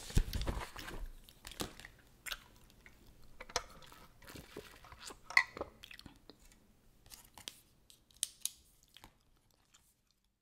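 Close-up chewing gum, with scattered sharp wet clicks and snaps, the loudest a little past halfway. Paper book pages are handled in the first second, with a soft low thud.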